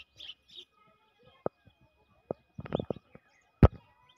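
Birds chirping briefly near the start, followed by several sharp taps, the loudest a little after three and a half seconds in.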